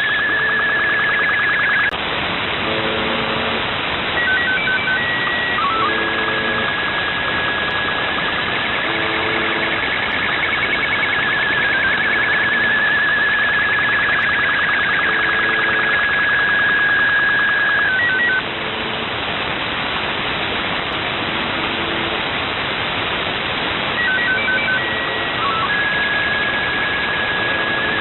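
Shortwave radio reception of the UVB-76 "Buzzer" station: short low buzz tones repeating every few seconds under heavy radio static. Over it sits a steady high-pitched tone that breaks off near the middle and returns near the end, with short stepped beeps at several pitches around each break, typical of a pirate transmitting over the frequency.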